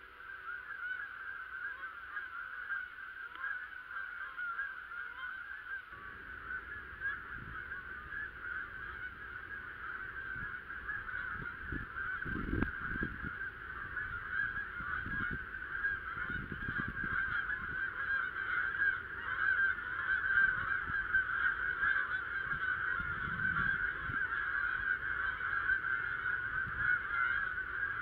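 A large flock of geese calling overhead: a dense, continuous chorus of overlapping honks that grows louder as the birds come over. A few soft low thumps come near the middle.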